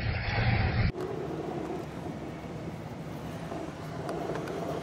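Air rushing past the canopy and airframe of an SGS 2-33 glider in unpowered flight: a steady rush with no engine. About a second in it changes abruptly from a louder low rumble to a quieter, even hiss.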